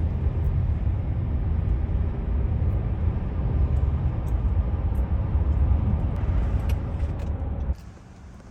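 Steady low rumble of a moving vehicle, like road and engine noise heard from inside a car. It cuts off abruptly near the end.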